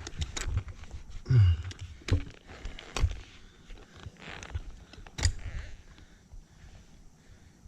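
A handful of sharp knocks and clicks, with one duller thud about a second and a half in, growing sparser and fainter toward the end.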